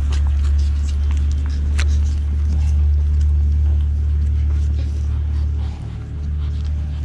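A steady low rumble that dips briefly about six seconds in, with faint scattered clicks over it.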